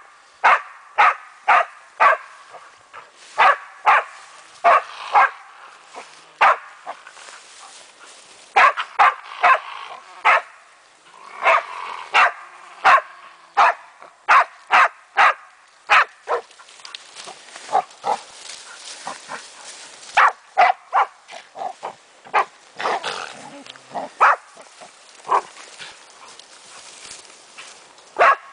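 German Wachtelhund (German spaniel) barking over and over at a raccoon dog holed up under spruce branches. Sharp barks come one or two a second in runs with short pauses.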